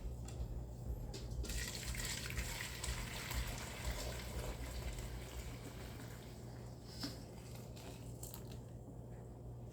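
Maple sap bubbling in a pot as it boils down toward syrup, with a steady low hum underneath; the bubbling eases off somewhat in the second half.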